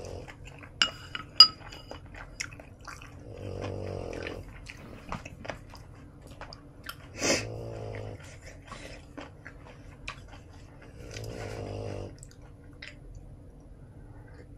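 A sleeping dog snoring slowly and rhythmically, one snore roughly every four seconds. Between the snores come small eating noises and two sharp, ringing clinks about a second in.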